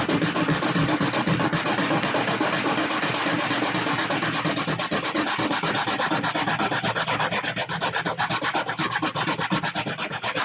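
A 3D-printed plastic model part rubbed back and forth on a sheet of sandpaper: rapid, even sanding strokes, several a second, that stop abruptly at the end.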